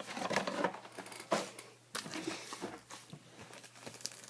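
Trading card pack wrappers and cards rustling and crinkling as they are handled, with a few sharper clicks and scrapes.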